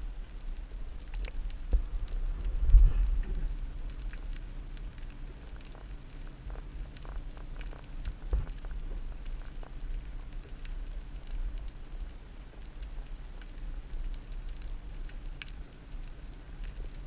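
Underwater ambience: a steady low rumble with scattered faint clicks and crackles, and dull thumps about three seconds in and again about eight seconds in.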